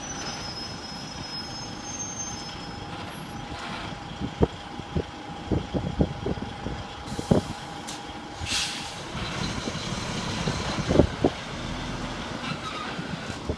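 A motor vehicle running at close range, with a steady whine for the first nine seconds or so and scattered knocks and clicks from about four seconds in.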